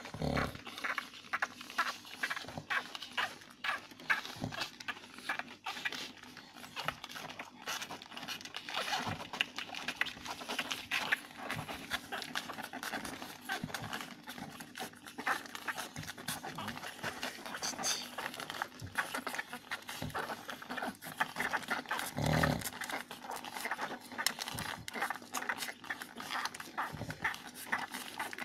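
Litter of newborn pug puppies nursing: a busy run of small wet suckling clicks and smacks, mixed with little squeaks and grunts from the pups.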